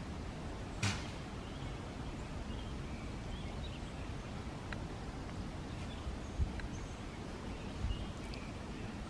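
Woodland ambience: a steady low rumble with scattered faint bird chirps and a few isolated sharp snaps, the loudest about a second in.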